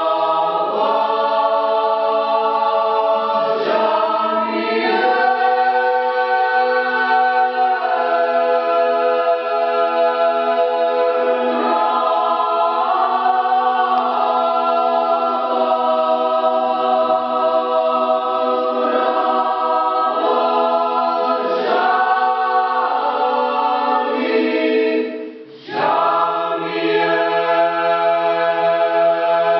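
Georgian polyphonic choir singing a cappella: sustained chords over a low held drone. The voices break off briefly about 25 seconds in and then come back in.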